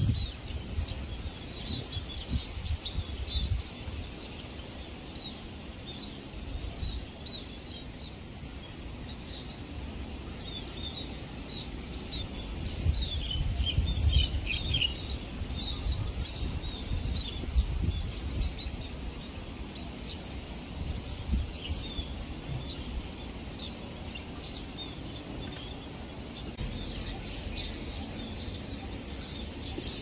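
A flock of scaly-breasted munias chattering: many short, high chirps overlapping throughout, with a low rumble underneath.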